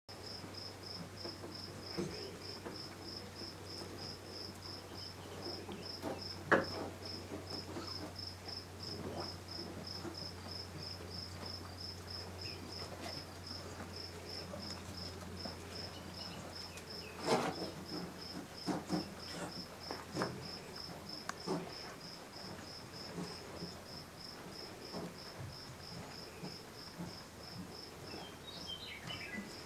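A cricket chirping steadily, about two or three high chirps a second, over a low steady hum that stops about two-thirds of the way through. Scattered knocks and rustles come and go, the sharpest about six seconds in.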